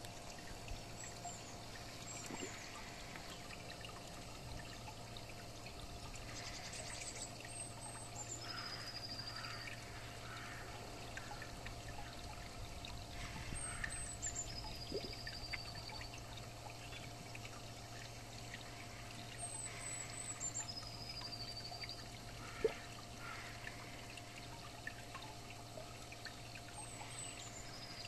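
Steady trickling and pouring of water in a garden pond, over a low steady hum. A bird sings a short, high, falling phrase several times, about every six seconds, and there is one sharp click about two-thirds of the way through.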